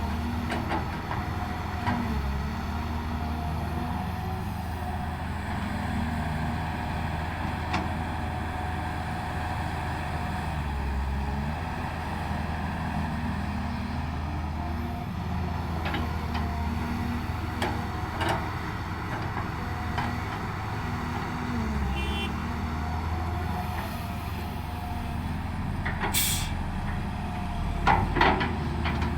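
Diesel engine of heavy earthmoving equipment running steadily under work, its pitch dipping briefly several times as the load changes, with scattered metallic knocks. Near the end, a short sharp hiss of air and a few louder clanks.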